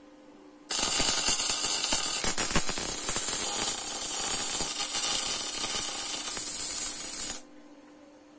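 Welding arc crackling and hissing for about six and a half seconds, starting abruptly just under a second in and cutting off sharply near the end.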